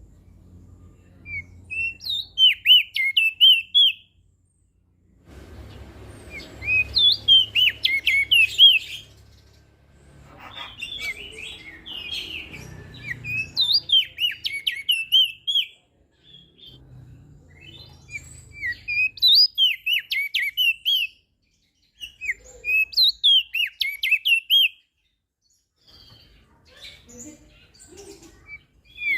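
Opior jambul (crested white-eye) singing: repeated phrases of fast, high, warbling chirps, each two to three seconds long with short pauses between them.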